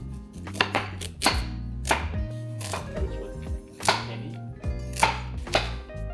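A knife chopping vegetables on a cutting board: about ten separate, unevenly spaced strokes.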